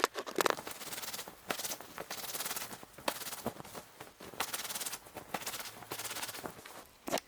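Cotton bedsheet being rubbed by hand to work stain remover into the stains: scratchy fabric rustling in uneven bursts of about half a second to a second, with short pauses between.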